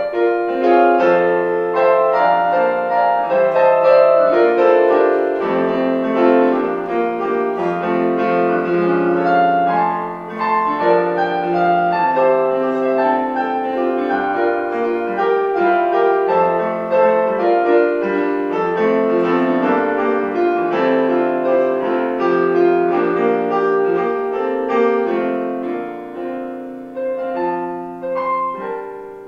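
Piano music: a solo instrumental piece in chords, with notes changing every half second or so, growing softer near the end.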